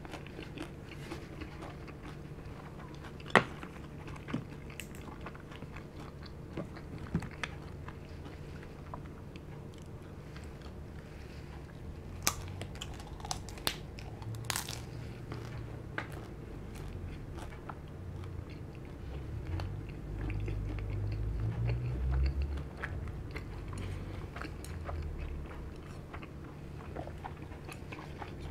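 Close-miked biting and chewing of crispy deep-fried spring rolls: sharp crunches every few seconds, a cluster of them about halfway through, and a louder spell of chewing a little later.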